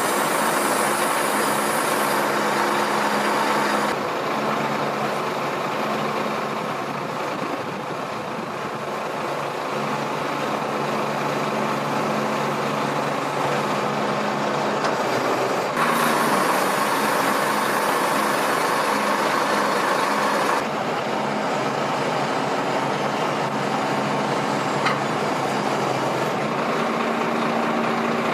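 Howo crane truck's engine running with the hydraulic pump driving the rear outrigger landing legs as they extend down to the ground: a steady low hum. A brighter hiss comes in during the first few seconds and again for several seconds past the middle.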